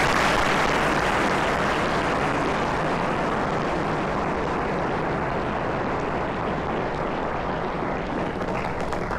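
A large audience of students applauding, a long steady round of clapping that is loudest at the start and thins slightly toward the end.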